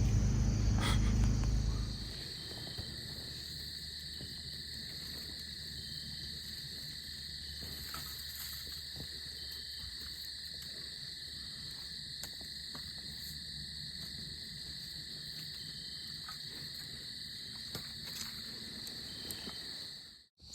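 A steady chorus of night insects, crickets or katydids, holding two constant high pitches, with a few faint ticks. Under it for about the first two seconds a portable generator runs with a low hum, which stops abruptly.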